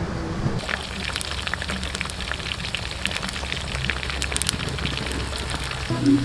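Oil sizzling and crackling in a wok as small frogs deep-fry: a dense hiss with many quick pops, starting about half a second in.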